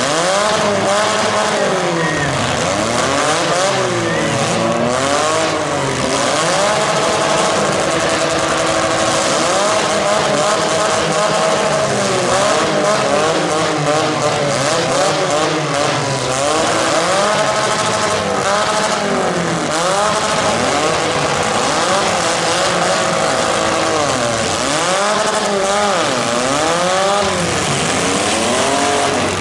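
Several demolition derby car engines revving hard, their pitch rising and falling over and over as the cars ram and shove each other on the dirt.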